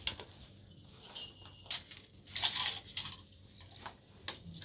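Spoons scraping and tapping on plates as rice is dished out: a scatter of short scrapes and clinks.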